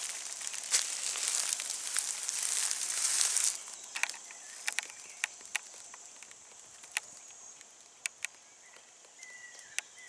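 Crunching rustle of footsteps or movement through dry leaf litter for about the first three and a half seconds, then a quieter stretch with scattered small clicks and ticks and a brief faint whistle near the end.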